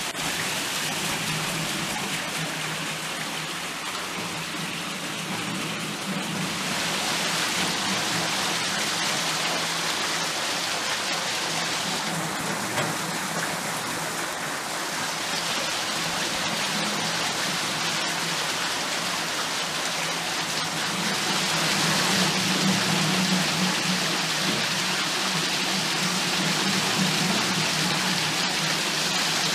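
Water pouring from a wooden flume onto the paddles of a turning wooden waterwheel, splashing and trickling steadily.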